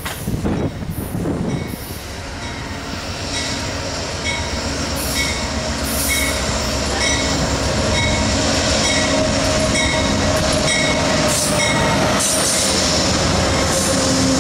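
Amtrak passenger train led by a GE P42DC diesel locomotive approaching and passing. The rumble of the diesel and wheels grows louder over the first eight seconds, then holds steady. Over it, a short ringing tone repeats roughly once a second until about three seconds before the end.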